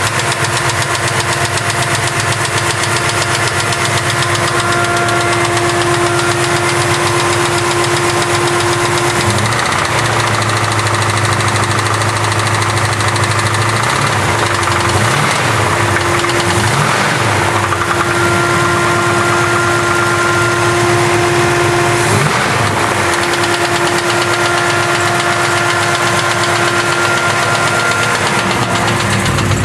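455 cubic-inch V8 engine running with a fast, regular tick, the sound its owner calls bad. The revs rise and fall briefly a few times in the middle.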